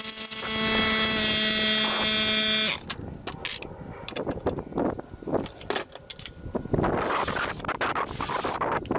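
A power tool's electric motor spins up, runs steadily for under three seconds and cuts off abruptly, followed by scattered knocks and handling noise.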